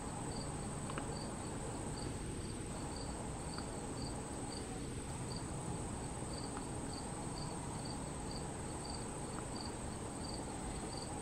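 Insects calling outdoors: a steady high-pitched buzz with a regular chirp repeating about two to three times a second.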